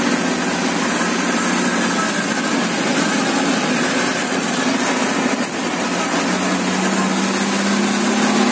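Bus running, heard from inside the cabin: a steady engine hum under continuous road and wind noise, with the low engine note growing steadier about six seconds in.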